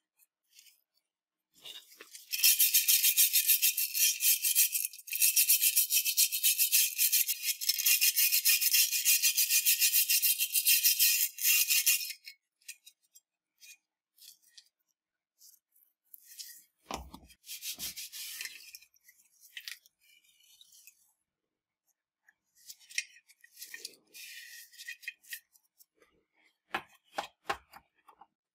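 Fast, steady scraping on the rusted steel of a WWII Mauser 98K bayonet for about ten seconds, then a few knocks as it is handled and shorter scrapes near the end.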